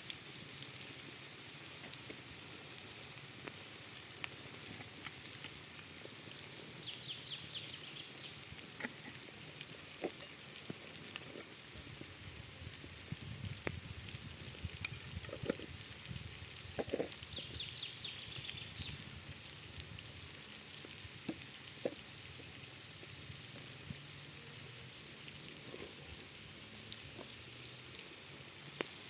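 Food sizzling in a pan over a campfire: a steady hiss with scattered crackles and pops from the fire.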